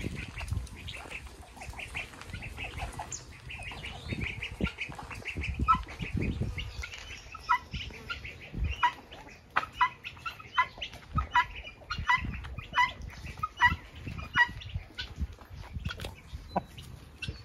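Free-ranging farmyard poultry calling: a busy chatter of overlapping calls, then from about six seconds in a run of short calls repeated evenly, a little more than one a second, for about nine seconds.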